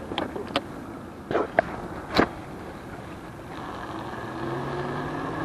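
A few sharp clicks and knocks from the bike, then from about three and a half seconds in the 1000-watt, 48-volt e-bike hub motor whines steadily and grows louder as the bike pulls away.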